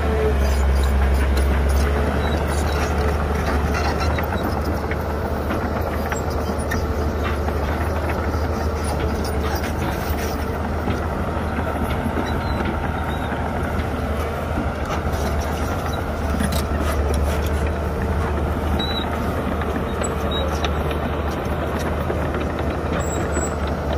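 Heavy diesel engine of construction machinery running steadily with a deep rumble, with scattered clanks over it.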